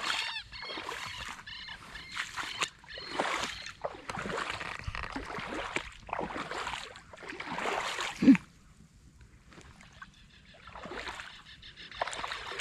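Legs wading through shallow marsh water: a rhythmic slosh with each stride, about one a second, with one louder thump about eight seconds in, then a short lull before the sloshing resumes.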